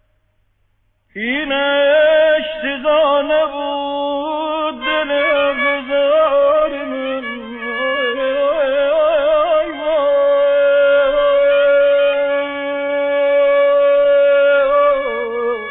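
Violin playing a solo line of Persian classical music. After about a second of near silence it slides up into an ornamented phrase, then holds a long steady note and steps down near the end.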